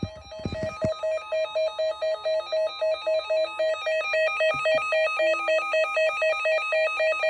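Electronic alert tone from an emergency alert receiver, beeping a few times a second with pitches stepping back and forth in a warbling pattern. It announces an incoming alert.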